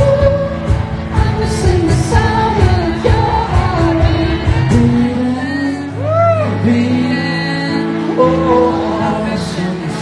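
Live pop song: a singer's voice over a band, with a steady drum beat that drops out about six seconds in, leaving held chords under the voice.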